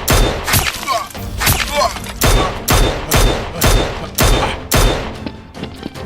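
Rapid gunfire, a steady run of sharp shots about two a second, each with a deep thump, in a blaster firefight. A couple of short whizzing glides sound between the shots between one and two seconds in.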